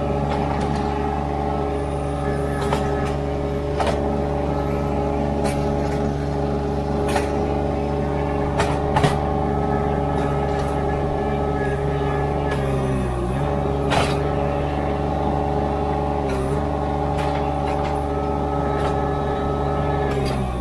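Ditch Witch SK800 mini skid steer's engine running steadily, its note sagging briefly twice past the middle, with scattered sharp knocks throughout.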